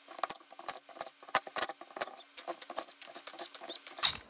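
Cordless impact wrench hammering in rapid bursts as it backs out the bolts of an ATV front differential's side cover, with a steady motor hum under the clicks that stops about four seconds in.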